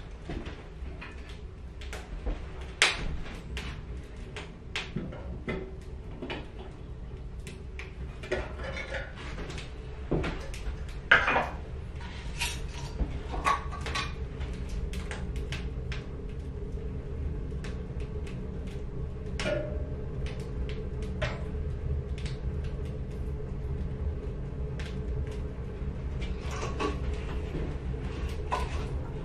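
Metal knocks and clatter as a stainless steel percolator coffee pot is set on a steel wood stove, the loudest knock about eleven seconds in. Scattered small clicks and crackles from the lit stove continue over a steady low hum.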